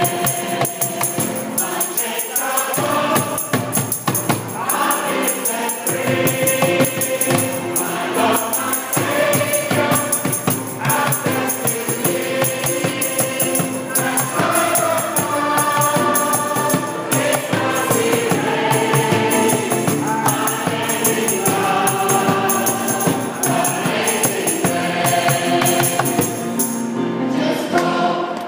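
A group of singers with microphones singing a Christian worship song, backed by hand drums and a jingling tambourine. Near the end the tambourine and drums drop out and the voices carry on alone.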